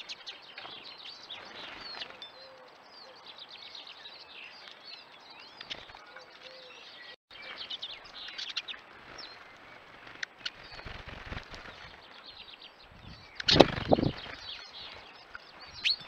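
Small finches at a seed feeder, Eurasian siskins, twittering in quick high chirps throughout. Near the end come two loud thumps as birds land and flutter at the feeder.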